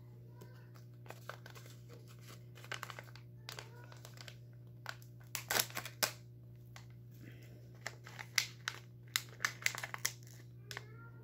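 Plastic packaging crinkling and rustling as it is handled, in irregular crackles and sharp clicks, the loudest about halfway through.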